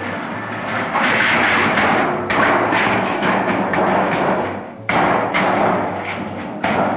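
Empty steel drum being rolled on its bottom rim across the ground: a continuous grinding, scraping rattle of metal, with sharper thuds about five seconds in and near the end as it rocks and sets down.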